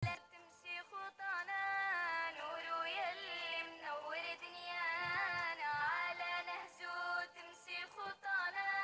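A female voice singing an Arabic nasheed, with no percussion, in flowing, ornamented melodic lines.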